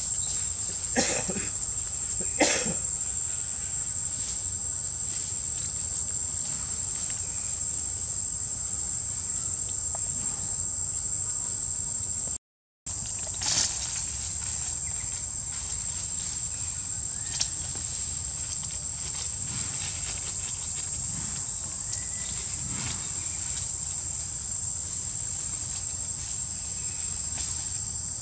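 Steady high-pitched drone of insects in the trees, one unbroken tone, with a few short sharp clicks, the loudest near the start. The sound cuts out completely for a moment just before halfway.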